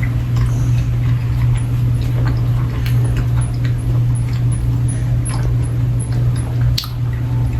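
A person chewing a soft milk candy with faint wet mouth clicks and smacks, over a steady low hum.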